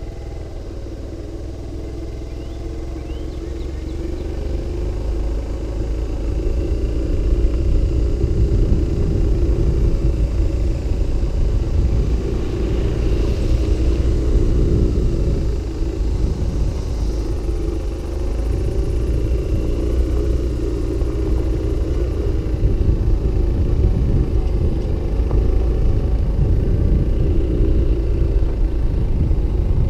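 A vehicle driving, heard from a camera mounted on it: a steady low rumble of engine and road noise that grows louder over the first eight seconds or so, then holds.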